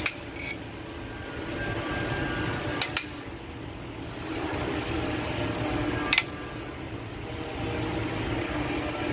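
Three sharp metallic clinks about three seconds apart, from tools and metal parts handled during an engine teardown, over a steady background hum.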